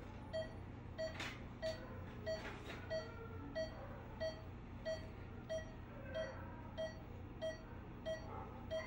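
Veterinary anesthesia monitor beeping steadily in time with the anesthetized dog's pulse, about three short beeps every two seconds.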